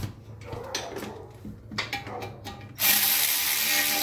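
Light clicks and clinks of tools and parts, then about three seconds in a power tool runs steadily and loudly for about two seconds, driving in the 10 mm bolt that holds a Honda Civic's ABS sensor.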